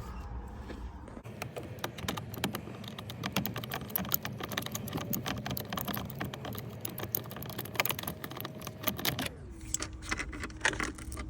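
Rapid, irregular clicking of a hand tool working loose the last T30 Torx screw that holds the steering-wheel airbag, stopping about two seconds before the end, when a faint steady hum is left with a few stray clicks.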